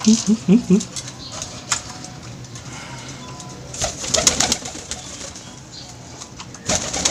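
Male domestic pigeon's courtship cooing, a run of short pulsed coo notes about four a second that stops about a second in. Later come bursts of rustling and fluttering wings.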